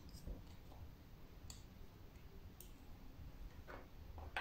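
Faint clicks of a small plastic glitter jar's lid being handled and taken off, with a short scraping rustle near the end.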